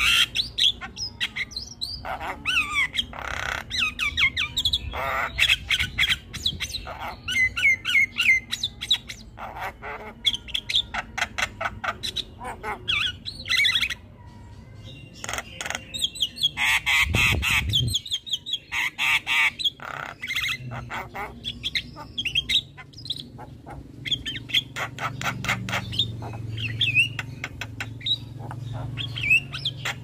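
Javan myna chattering and squawking nonstop: rapid runs of harsh calls, clicks and whistles, with a short lull about halfway through followed by a loud burst.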